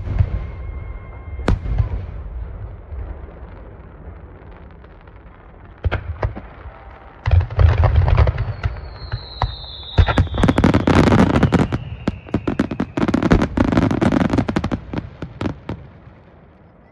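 Aerial fireworks finale: two sharp booms, a short lull, then a dense barrage of shell bursts and rapid crackling from about seven seconds in. A falling whistle runs through the middle of the barrage before it dies away near the end.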